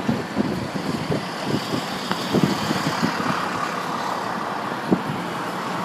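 Car traffic noise heard from inside a moving car: a steady rumble and hiss of engine and tyres, with irregular low thumps throughout.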